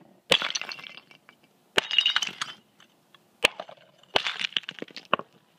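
Fired clay crucibles being broken open to free the cast wootz steel ingots inside: about four sharp blows, each followed by the crackle and clink of ceramic shards falling onto concrete.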